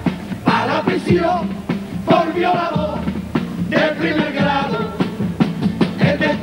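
A group of men singing together in Spanish at a microphone, with strummed and drum accompaniment keeping a steady beat, in the manner of a Cádiz carnival chirigota.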